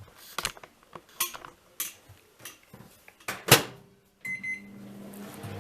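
Clicks and knocks of a microwave oven being handled, the loudest a sharp knock about three and a half seconds in; then a short high beep and the microwave starts running with a steady low hum.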